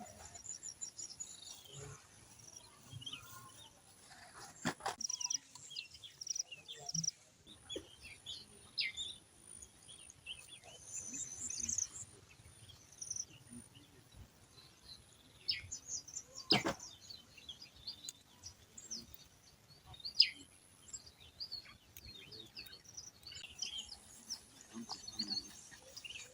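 Small birds chirping and calling, with many short high chirps throughout and a faint steady high whine behind them. A few sharp knocks cut through, the loudest about twenty seconds in.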